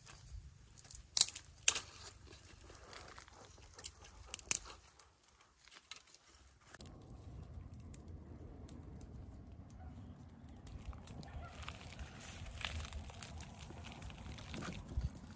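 Dry twigs being handled and snapped, with a few sharp cracks in the first half. From about seven seconds in, a small twig fire crackling with light pops over a steady low rumble.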